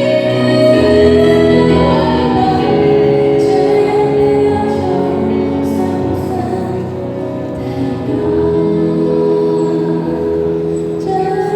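A song sung with instrumental accompaniment, the voice holding long notes over a steady bass line.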